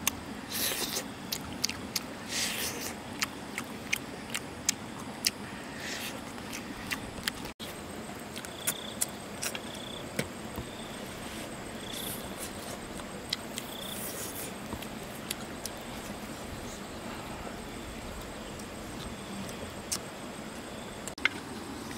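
Close chewing and mouth clicks as food is eaten. About seven and a half seconds in, these give way to light clicks and scrapes of a utensil picking food from a metal wok, with a few faint short high chirps in the background.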